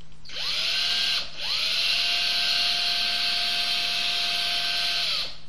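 Electric drill with a twist bit whining up to speed, stopping briefly about a second in, then running at a steady pitch for about four seconds before winding down. It is set to reverse, so the bit spins against the wooden board without cutting.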